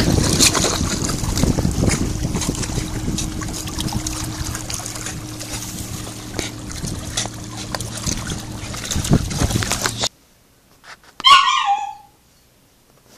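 Shallow creek water splashing and trickling over rocks as a small dog wades through it. It cuts off abruptly, and after a short silence comes a brief, loud squeak that falls in pitch.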